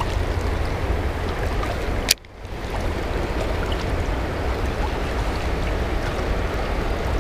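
Steady rush of high water pouring through an open dam, with a low rumble underneath. A single sharp click about two seconds in, after which the sound drops briefly and comes back.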